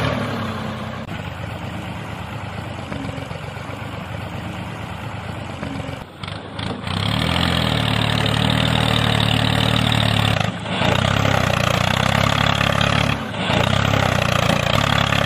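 A motor running steadily with a low, engine-like drone, driving a miniature tractor stuck in mud. It breaks off briefly about six, ten and a half and thirteen seconds in, and is louder after the first break.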